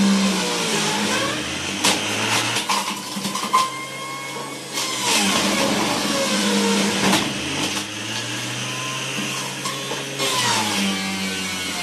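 Panasonic electric juicer's motor running under load as beetroot pieces are pushed down the feed chute into the spinning grater. Its pitch sags and picks up again several times as the pieces bite, with a few sharp knocks from the pieces and the pusher.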